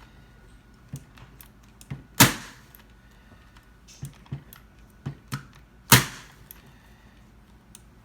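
Staple gun firing twice, two sharp snaps about four seconds apart, driving staples through upholstery fabric into the stool's base. Lighter clicks and taps of handling come between them.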